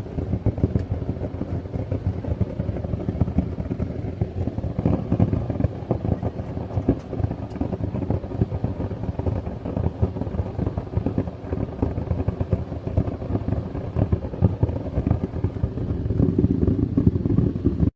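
Propane-fired homemade metal-melting furnace burner running with a steady, rough, low rumble.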